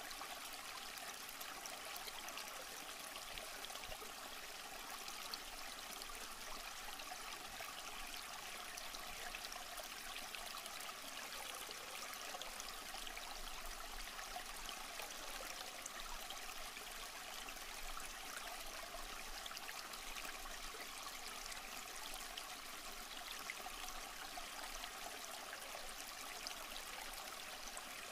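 Shallow rocky stream flowing and trickling steadily.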